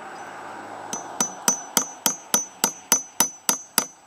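Claw hammer striking a pin punch set against the shaft of a Briggs & Stratton lawn-tractor starter motor: a steady run of about ten sharp metal-on-metal blows, three or four a second, starting about a second in, each with a short high ring. He is driving at a stuck key to free the starter's drive gear.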